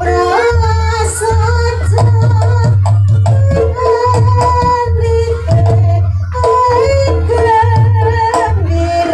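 Live gamelan accompaniment for a reog barong dance: frequent hand-drum strokes over pulsing low gong-like tones, with a high wavering melody line on top.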